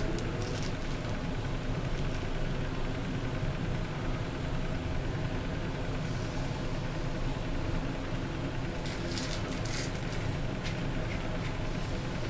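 Small electric motor of a rotating display turntable running with a steady low hum. A few brief scratchy clicks come about nine to ten seconds in.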